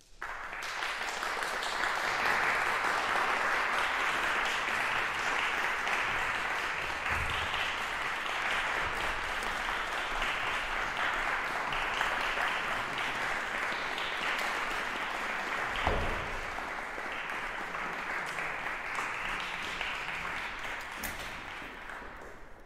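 Audience applauding in a concert hall, an even clapping that starts suddenly and tapers off near the end. A single thump about two-thirds of the way through.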